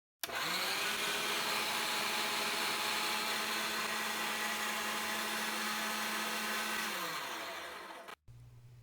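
Hamilton Beach electric meat grinder's motor switched on and run empty: it spins up with a rising whine, runs steadily for about seven seconds, then is switched off and winds down, falling in pitch until it stops.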